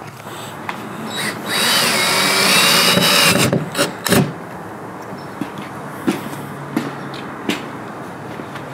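Cordless drill run into a wooden mounting block for about two seconds, its motor whine dipping briefly in pitch before rising and holding. It is followed by a few sharp clicks and then some light ticks.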